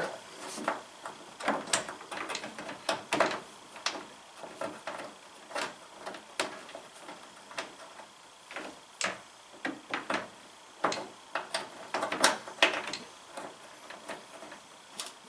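Irregular light clicks and knocks of a plastic mud guard and its screw being handled and fitted against a pickup truck's front fender, one or two a second.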